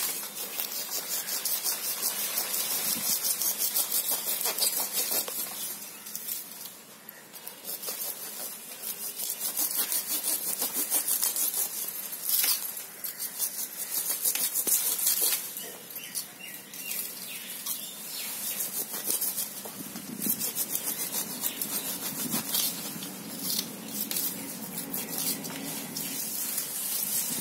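A knife scraping and cutting into the dense, fibrous root ball of a red neck palm, with roots tearing and rustling in a quick, continuous run of scratchy strokes. The old roots are being cut away during repotting.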